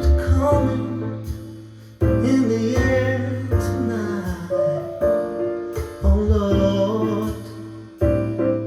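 Background music: a song with singing over instruments and a heavy bass.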